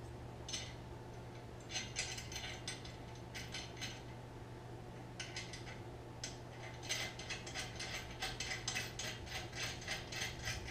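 Hand ratchet wrench clicking in short bursts as traction-bar hardware is tightened, the strokes coming faster and steadier over the last few seconds, over a steady low hum.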